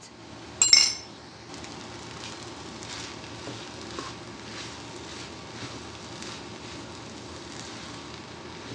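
Uncooked rice and chopped vegetables sizzling steadily in a frying pan while a wooden spatula stirs and scrapes through them. A sharp clink sounds about a second in.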